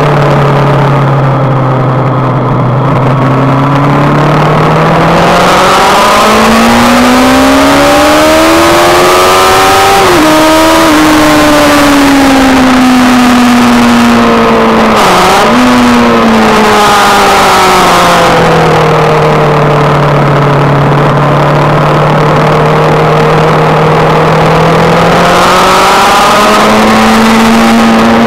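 Onboard sound of a sport motorcycle engine on a race track. It pulls up through the revs, drops briefly at a gear change about ten seconds in, then falls away as the rider backs off, with a quick dip and blip about halfway through. It then holds a steady note and picks up again near the end, under a heavy wind rush at speed.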